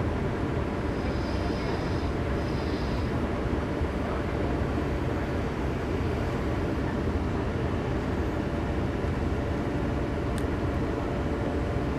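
Heavy diesel machinery running steadily, a continuous low engine rumble that holds an even level throughout.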